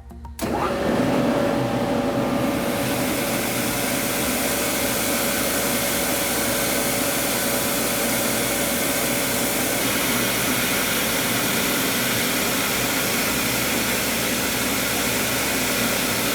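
Sullair 16BS-75H rotary screw air compressor with its 75 hp motor, running steadily with a loud, even rush of air. It cuts in abruptly about half a second in, and a faint steady whine under the rush fades out about ten seconds in.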